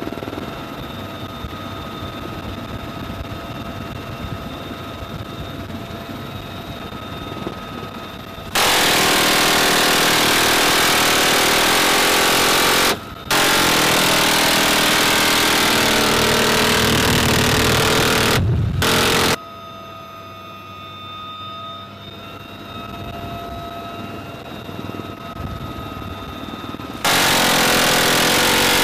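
UH-1Y helicopter running steadily with a whine, broken by long bursts of rapid door-gun fire that start and stop abruptly: a first stretch of about ten seconds with a brief break, a short burst just after, and a new burst near the end.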